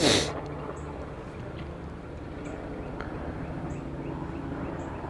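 Steady hum of a honeybee colony at the open hive, many bees buzzing together in a droning tone. A short breathy puff of noise sounds right at the start.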